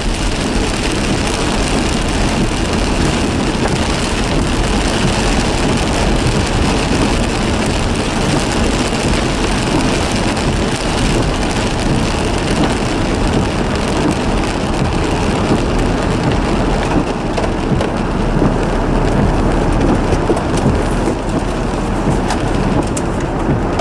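Freight train cars rolling past, a steady loud rumble and rush of steel wheels on the rails.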